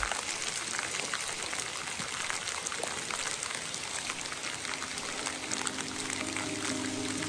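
Steady rainfall, an even hiss of many small drops pattering. Faint steady music notes come in near the end.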